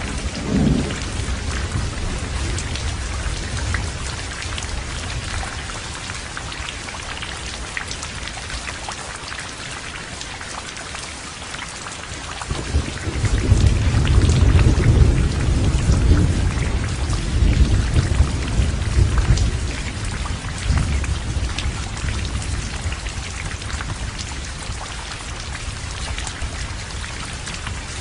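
Heavy rain falling steadily with thunder: a low rumble fading over the first few seconds, then a louder roll of thunder that builds about halfway through and dies away over several seconds.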